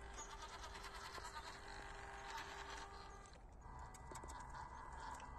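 Small electric motor and gear drive of a 1/16 scale WPL RC crawler whining as it drives, with small clicks from the drivetrain and tyres on rock. The whine changes pitch a little past halfway.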